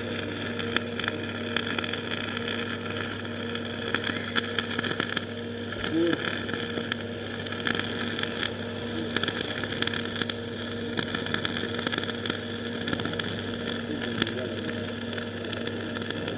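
MIG/MAG welding arc burning steadily, a continuous crackling buzz over a constant electrical hum.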